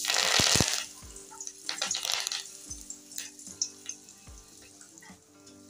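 Fresh curry leaves dropped into hot oil in a steel kadhai: a loud burst of spitting and sizzling at once, a second flare of crackling about two seconds in, then a fading sizzle with scattered pops as the water in the leaves cooks off.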